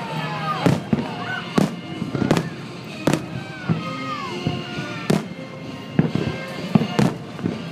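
Aerial fireworks bursting: about eight sharp reports spaced roughly a second apart, some with a crackling tail.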